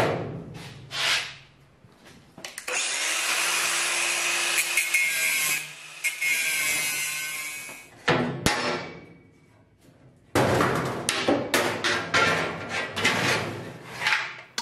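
Cordless drill running for about three seconds, driving a screw into sheet steel, then winding down. From about ten seconds in, a run of sharp metallic clanks and rattles as a flat steel bar is handled against the truck cab.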